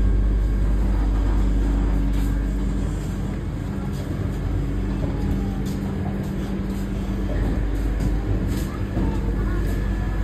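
Vande Bharat Express train running, a steady low rumble with a hum over it and a few faint clicks.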